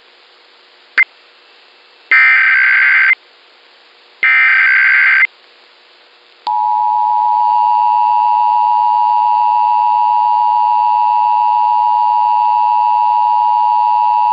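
Emergency Alert System test on a broadcast: a click, then two roughly one-second bursts of the digital SAME header, then from about six seconds in the steady two-tone EAS attention signal.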